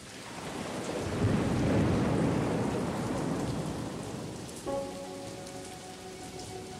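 Rainfall with a roll of thunder that swells over the first couple of seconds into a deep rumble and slowly dies away. About two-thirds of the way through, a few steady ringing tones come in over the rain.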